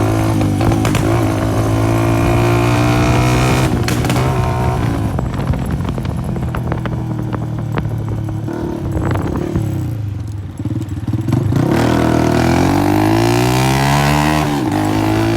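Honda CG 125 single-cylinder four-stroke engine with a burst silencer, running loud on the move and revving up and down through the gears. There is a run of crackling pops near the middle as the throttle eases off, then a rising rev and a drop in pitch at a gear change near the end.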